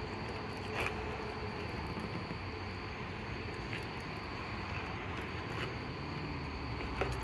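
Steady outdoor background: a low rumble with a thin, steady high-pitched hum over it, and a soft click about a second in and another near the end.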